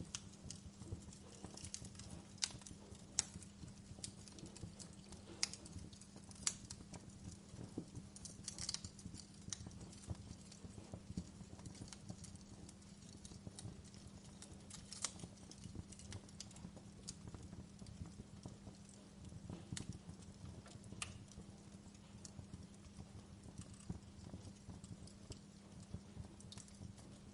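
Wood fire crackling: irregular sharp pops and snaps, a few much louder than the rest, over a steady low hum.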